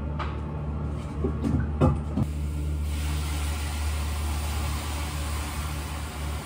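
Water ladled onto the hot stones of a sauna heater, hissing as it flashes to steam. The hiss starts about two seconds in, after a few light knocks of the ladle, over a steady low hum.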